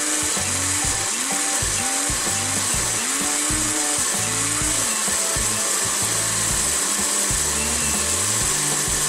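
Electric countertop blender running steadily at high speed, grinding a thick wet spice paste of chilies, shallots, garlic, candlenuts and shrimp paste.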